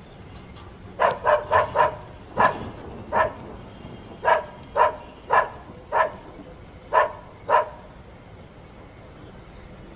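A dog barking about a dozen times in short, quick runs, starting about a second in and stopping a couple of seconds before the end.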